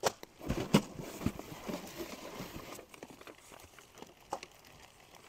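A few light knocks and clicks with soft rustling as items and packaging are handled among cardboard boxes, mostly in the first two seconds, then only a couple of faint ticks.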